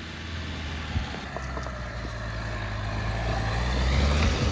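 Dacia Duster 4x4's engine running as the SUV drives over a rocky track, getting louder as it comes up close and then dropping away near the end, with a few clicks and knocks from the stones under the tyres.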